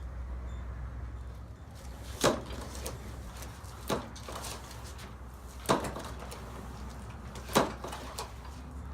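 Motorcycle front forks being pushed down and let spring back, giving four sharp knocks about two seconds apart, each followed by a softer one, over a steady low hum. The forks are being pumped to see whether the cleaned fork seal still leaks.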